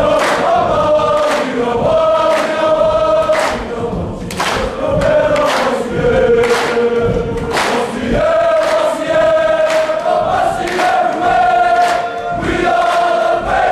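A large group of voices singing a hymn together, holding long notes that move from one pitch to the next.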